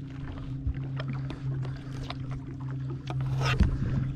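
Boat motor running steadily with a low, even hum while the boat trolls, with a few light clicks and knocks over it.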